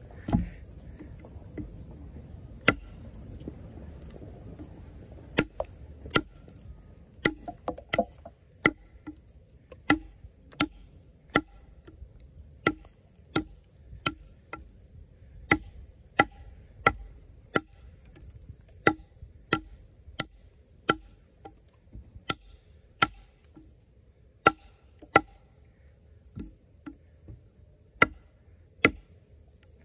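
Extrema Ratio Tuscan fixed-blade knife in N690 steel chopping into wood. The sharp strikes are sparse at first and then settle into a steady rhythm of a little more than one a second. A steady high insect trill runs underneath.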